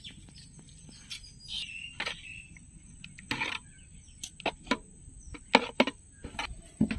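Rural outdoor ambience: a steady high insect drone and a short falling bird call, with a handful of sharp knocks and clicks in the second half, the loudest about five and a half seconds in.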